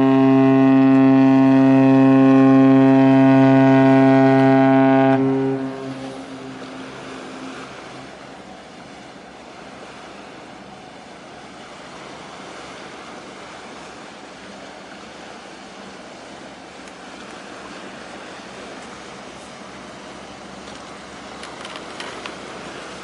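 The horn of the oil/chemical tanker Bow Aquarius sounding one long deep blast, which cuts off about five seconds in and echoes away. After it there is a steady noise of wind and sea.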